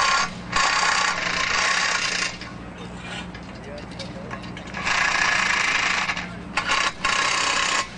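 Cordless power tool run in repeated bursts of one to two seconds with short pauses between, driving bolts into steel bridge members during assembly.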